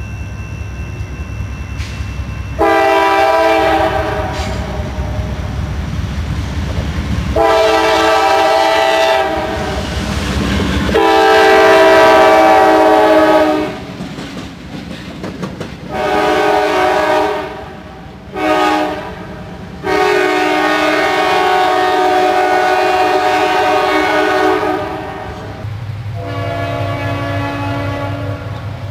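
CSX diesel freight locomotive sounding its multi-chime air horn as it passes close by: several long blasts and two short ones, over the rumble of the engine and the wheels on the rails. Near the end a fainter horn comes from a second train.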